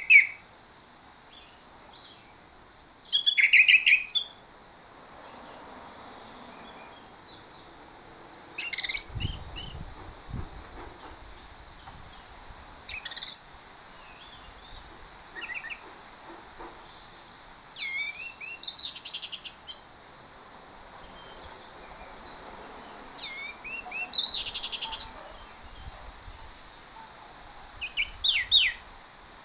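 Orange-headed thrush singing its loud, clear 'plong' song in short bursts of varied whistles and rapid trills, one phrase every four to five seconds, over a steady high hiss.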